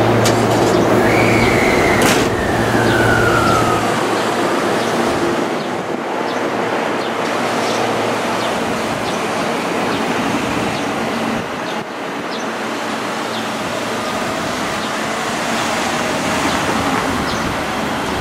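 JR West 223 series electric train accelerating away from a station: its VVVF inverter whine climbs briefly, then slides down in pitch over the first few seconds. A sharp click comes about two seconds in, and the running noise of the train carries on and slowly eases as it pulls away.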